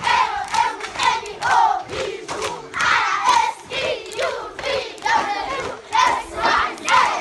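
A crowd of children chanting loudly together, a rhythmic string of short shouted calls about two a second.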